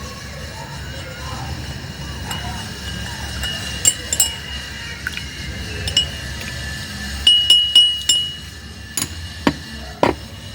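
Kitchenware clinking and tapping: a scattering of sharp clinks, thickest about seven to eight seconds in, with one more near the end.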